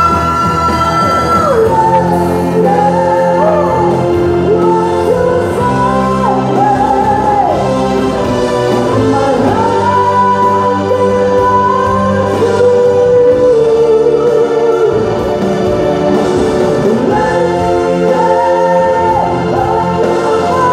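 A male vocalist singing live through a microphone, backed by a band with electric guitar. A long high note is held at the start and falls away about a second and a half in, and the melody then moves on in held and sliding notes.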